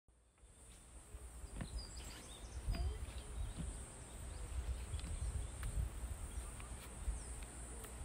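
Countryside ambience: a steady high-pitched insect drone, a few short bird chirps, and an uneven low rumble on the microphone. It fades in over the first second.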